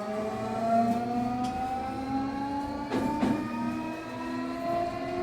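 Hitachi SiC-VVVF inverter whine of a Nankai 8300 series electric train, several tones rising slowly and steadily in pitch as the train picks up speed. A couple of short clicks from the wheels on the track come about three seconds in.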